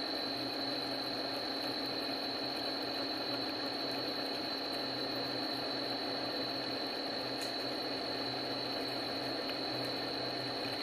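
Emco Turn 120 CNC lathe running a turning cut on a shaft: a steady machine hum with a constant high whine that does not change.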